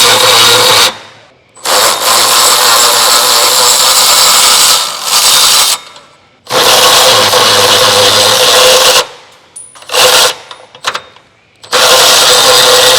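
Power wrench run in repeated bursts, two long runs of a few seconds and several short blips, as bolts are worked loose to drop the exhaust.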